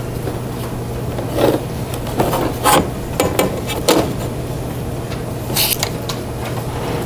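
Pen stroking across paper and a ruler sliding and being set down on it: a handful of short, irregular scratching and rubbing sounds over a steady low room hum.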